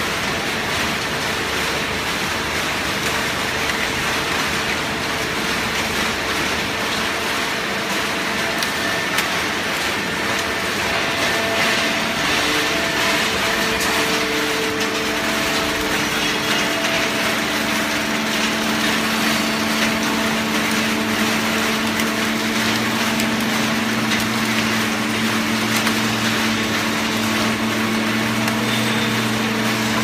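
Horizontal hydraulic baling press running: a loud, steady machine noise from its hydraulic power unit and compressing ram, with hum tones over it. A lower hum comes in past the middle and grows stronger.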